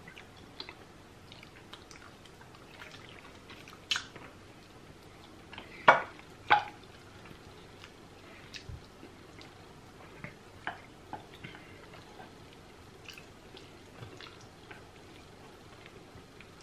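Mouth sounds of people eating spicy goat head (isi ewu) with their hands: scattered wet lip smacks and clicks of chewing, with one louder smack about four seconds in and two more about six seconds in.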